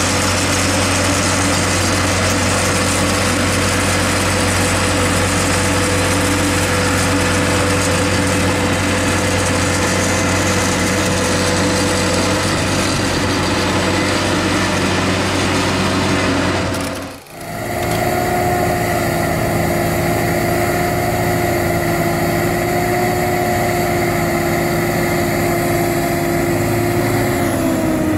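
Tractor engines running steadily under load during a mud recovery, with a deep, constant hum. About two-thirds of the way through, the sound drops out briefly at a cut, then resumes as a different tractor engine running steadily with a high, even whine.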